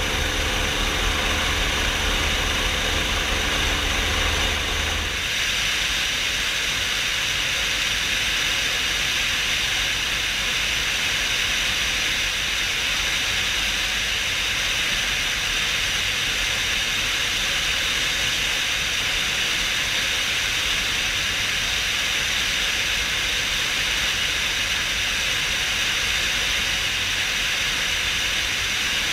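Helicopter in low flight, heard from a camera mounted on its outside. For about five seconds the rotor and engine make a steady low throb. Then the sound changes suddenly to a steady rushing hiss of air over the microphone that holds to the end.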